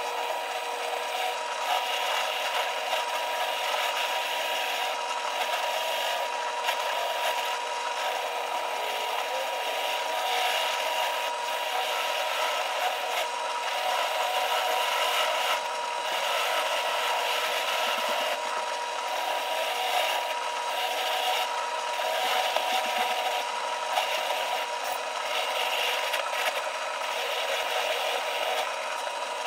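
Benchtop drill press running with a wire wheel brush in its chuck, scrubbing rust off a steel ball-peen hammer head pressed against it: a continuous scratchy rasp over a steady motor whine.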